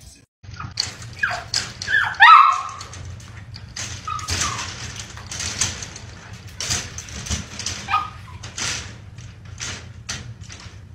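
A dog whimpering and whining in short high cries that rise and fall, loudest about two seconds in and returning a few times later, with brief clattering noises in between.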